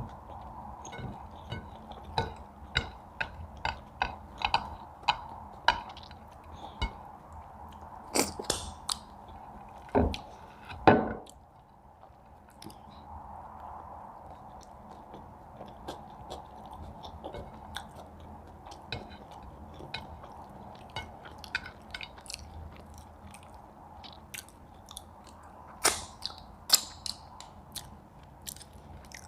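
Close-up eating sounds: chewing with a steady run of short wet mouth clicks and smacks, and a few louder knocks about a third of the way in.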